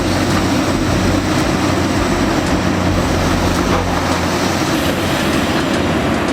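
Large long-front demolition excavator working: a steady diesel engine drone under a continuous rumbling clatter.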